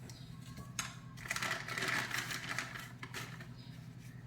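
Plastic packaging crinkling and rustling as a car part is handled, with a few sharp clicks. A steady low hum runs underneath.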